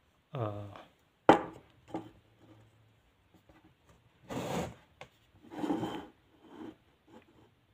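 Handling noises as a plastic cup of toothbrushes is set down on a wooden ledge: a sharp knock about a second in, then two longer rubbing scrapes.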